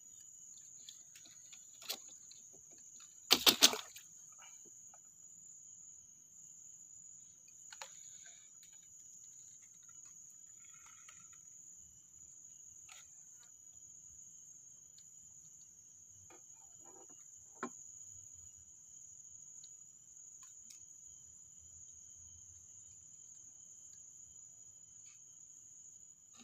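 Steady high-pitched insect chorus in a swamp forest, with a few sharp knocks; the loudest is a quick cluster of knocks about three and a half seconds in.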